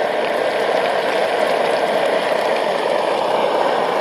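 MSR XGK multi-fuel stove running flat out on low-grade diesel, its pressurised burner giving a steady rushing roar that the cook calls "totally raging", with chicken frying in oil in the pot above it.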